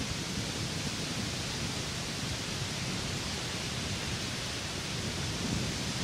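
Steady rushing noise with an unsteady low rumble, typical of wind buffeting the microphone outdoors; no bird calls stand out.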